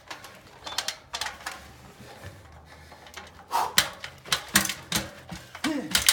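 Specialized road bike with Roval carbon wheels bumping up stone steps: irregular knocks and clicks as the wheels strike each step, coming in clusters with quieter gaps between.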